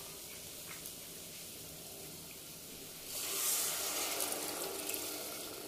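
Tamarind water poured from a bowl into a steel pot of oil-fried masala and shrimp, a splashing rush of liquid that starts suddenly about three seconds in and carries on as the pot fills.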